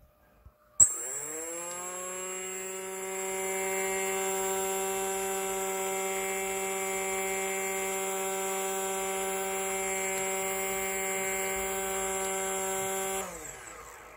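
Brushless drone motor with no propeller, driven by an electronic speed controller, starting with a sharp click about a second in and spinning up within a second to a steady whine with a high-pitched tone above it. Near the end it is cut and winds down, its pitch falling.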